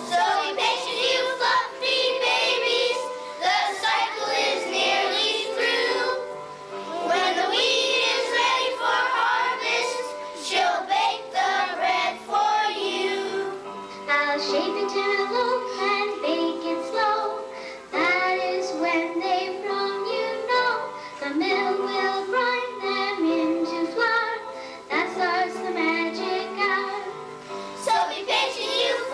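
Children singing a song with musical accompaniment, in phrases of a few seconds each.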